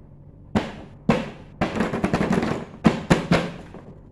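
Hands knocking, tapping and handling a large cardboard toy box with a plastic window: single sharp knocks about half a second and a second in, a crackly run of handling through the middle, and three more sharp knocks close together near the end.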